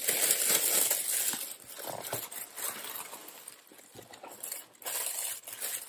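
Thin plastic carryout bag and paper rustling and crinkling as hands rummage inside it, loudest at the start and again near the end.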